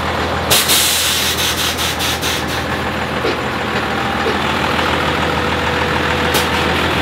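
Lifted second-generation Dodge Ram pickup's engine running steadily. About half a second in a sudden pulsing hiss of air lasts about two seconds, and a short second hiss comes near the end.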